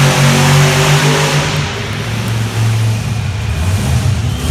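Monster truck engine revving, its note held high, then dropping in pitch about a second and a half in and settling into a rougher, lower running.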